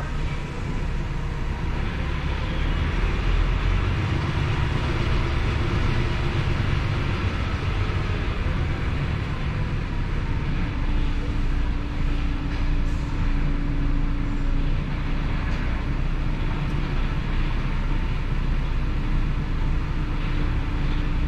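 DAF truck's diesel engine running steadily at low speed as the truck creeps along a ferry's vehicle deck, a continuous low rumble.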